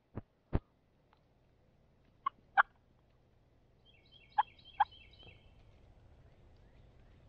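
Wild turkey gobbling, with a rapid rattling run of notes about four seconds in. Short sharp sounds come in pairs three times and are the loudest things heard.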